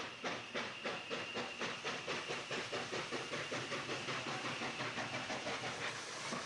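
Saddle-tank steam locomotive pulling away with a train, its exhaust chuffing in sharp, even beats that quicken to about four or five a second as it gathers speed.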